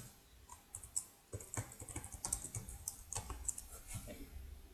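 Typing on a computer keyboard: a run of faint, irregular key clicks as a password is entered.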